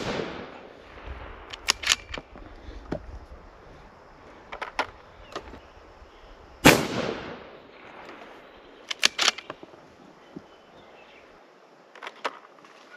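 A Ruger 77/17 bolt-action rifle in 17 Hornet fires one unsuppressed shot about halfway through: a sharp crack that rings off in a long echo. The echo of a shot fired just before is still fading at the start, and between shots the bolt clicks sharply as it is worked.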